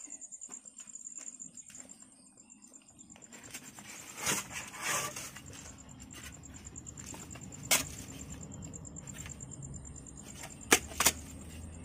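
Crickets trilling steadily in a high, pulsing note. From about three seconds in, a rustling noise rises, with two louder whooshes around four and five seconds and a few sharp clicks later on.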